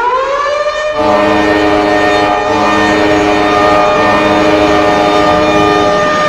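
Toronto Maple Leafs' 2000-01 arena goal horn blasting. Its chord rises slightly in pitch as it starts and then holds steady and loud. A second, lower set of tones joins about a second in and drops out near the end.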